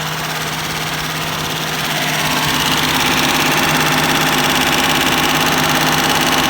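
1993 Mitsubishi 3000GT SL's freshly rebuilt 3.0-litre V6 idling steadily, getting louder about two seconds in. The owner judges that it has an exhaust leak.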